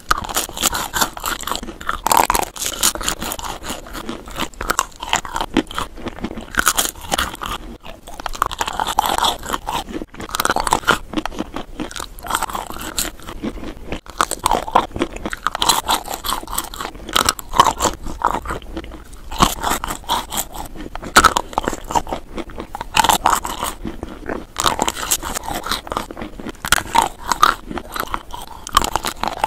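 Close-miked biting and chewing of Dickmann's chocolate-coated marshmallow treats. The thin chocolate shell and wafer base crackle and crunch with each bite, again and again.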